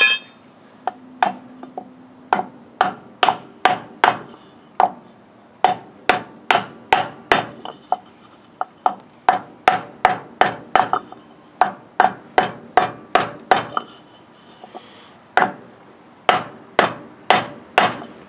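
Rubber mallet striking a block of 2x4 held against a 1999 Ford F-350's front wheel hub, tapping the grease cap into place: dozens of sharp taps, about two a second, in runs with short pauses.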